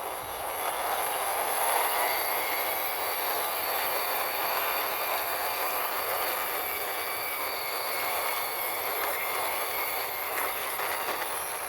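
Toy concrete mixer truck pushed by hand, its plastic wheels rolling along the ground with a steady grinding rattle and a faint thin squeal.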